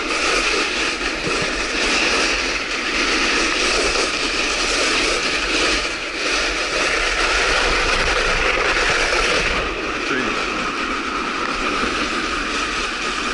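Steady scraping rush of a snowkiter gliding over icy spring slush, with wind buffeting the microphone.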